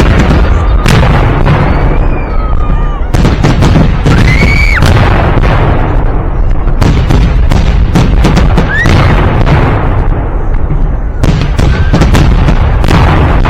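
Festive fireworks salute, with bursts following one another rapidly in a near-continuous run of loud bangs. A few voices of onlookers shout in between.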